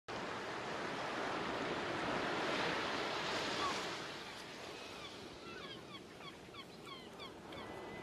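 Ocean waves on a shore: the wash swells over the first few seconds and eases off about four seconds in. A run of quick, high, falling chirps comes in over the second half.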